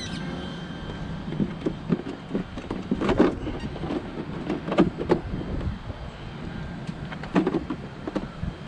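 Irregular hollow plastic knocks and clacks as a large RC car's body shell is handled and pressed down onto its chassis by hand, over a steady low background rumble.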